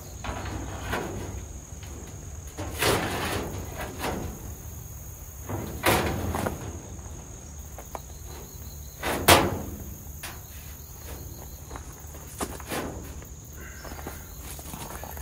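Scattered knocks and clunks as a sheet-metal bed panel is handled and set in place, the sharpest knock about nine seconds in. A steady high insect-like chirr runs underneath.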